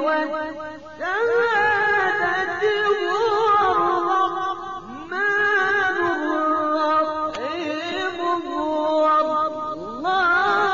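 A male reciter chanting the Quran in melodic tajweed style. He holds long, ornamented notes in several phrases, with short breaths between them.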